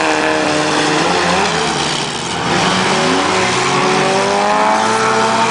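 Several four-cylinder demolition derby cars' engines revving, their pitch rising and falling as the cars drive and shove each other on the dirt track.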